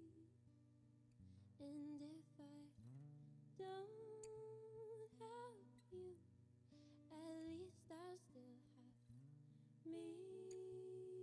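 Soft live acoustic music: a woman sings held, wordless phrases over an acoustic guitar accompaniment.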